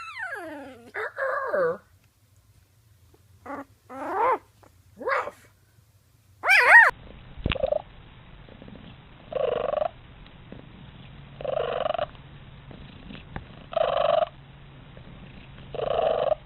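Animal calls: several short cries falling in pitch, then, after a change of recording, four evenly spaced calls about two seconds apart.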